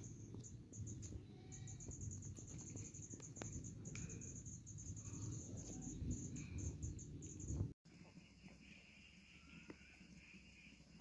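An insect trilling in fast, high-pitched pulses over a low rumble. The trill breaks off sharply about eight seconds in, and a fainter, steady high hum follows.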